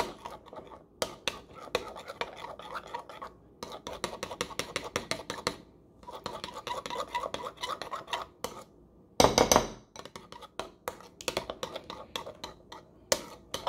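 Spoon stirring a thick gochujang and soy sauce glaze in a bowl: quick clinks and scrapes against the bowl's side in runs with short pauses. A louder thump about nine seconds in.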